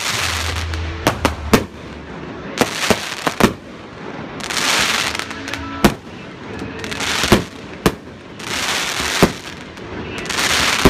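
Aerial fireworks display: about nine sharp bangs of shells bursting at uneven intervals, with a low boom at the start and stretches of hiss between the bangs.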